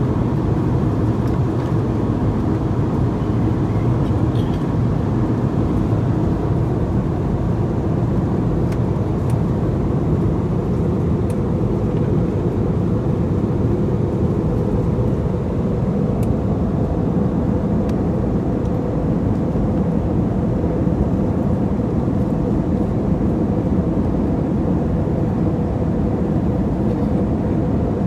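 Steady cabin noise of an airliner in flight: a constant low rush of engine and airflow noise with a faint steady drone.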